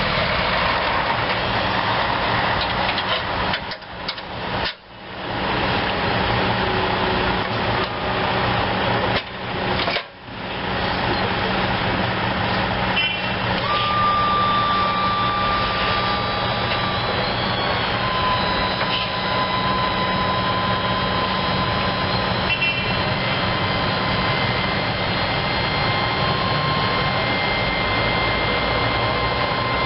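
The Kohler 25 HP gas engine of a Hustler Raptor zero-turn mower running steadily. The sound drops out briefly twice in the first ten seconds, and a thin high whine comes in midway and steps down in pitch a few seconds later.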